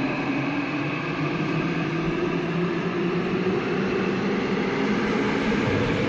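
Seoul Line 7 subway train moving along the platform behind the screen doors: a steady rumble and hiss of the running train, with a few electric motor tones that drift gently in pitch.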